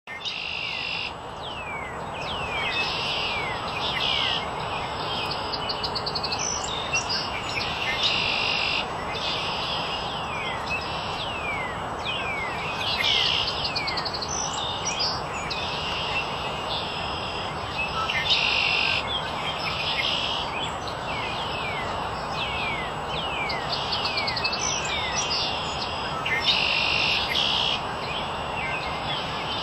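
Birds singing: repeated high falling whistles and short buzzy trills every second or two, over a steady background hiss.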